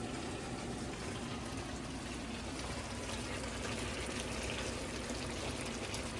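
Steady watery hiss and bubbling of food cooking in a pot or pan on the stove.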